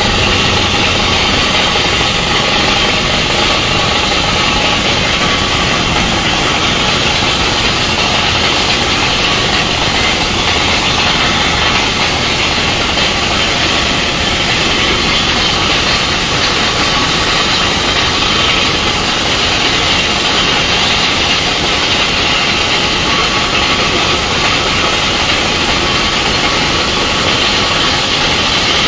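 Truck-mounted water well drilling rig running under test, a loud steady mechanical noise with a strong hiss and no letup.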